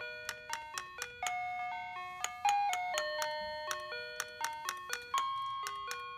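Battery-operated drumming Santa toy playing a chiming electronic tune, each note starting with a sharp click.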